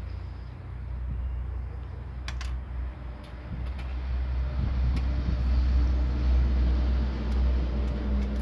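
Low rumble of a vehicle engine that grows louder about halfway through, with a few faint clicks over it.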